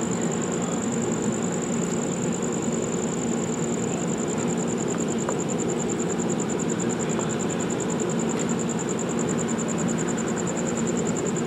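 Steady idling hum of an Amtrak passenger train standing at a station platform, running without change. A high, fast-pulsing whine sits over it, and a few faint ticks are heard in the middle.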